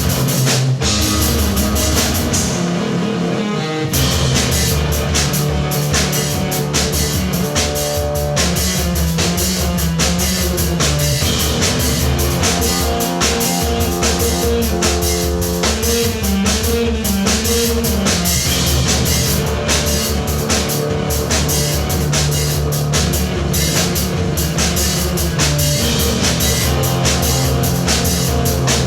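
Rock band playing live: drum kit and electric guitar over a steady low bass line, with a short break in the cymbals about three seconds in.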